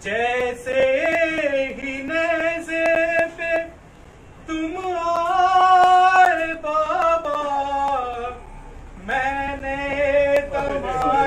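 A man's unaccompanied voice singing a slow mourning lament in long held notes, in three phrases with short breaths between them.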